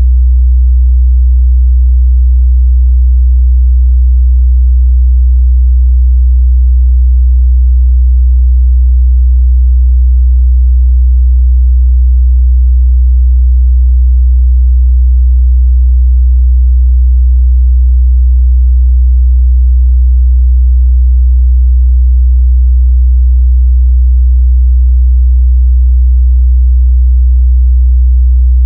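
Steady 62 Hz sine-wave test tone, a loud continuous low bass hum held at one pitch, used to check speaker and headphone mid-bass response.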